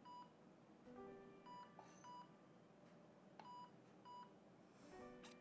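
Faint patient monitor by a hospital bed, giving short, high, steady beeps about once a second.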